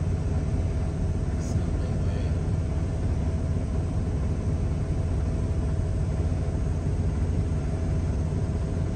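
Semi truck's diesel engine running steadily, a continuous low rumble with a faint steady hum over it.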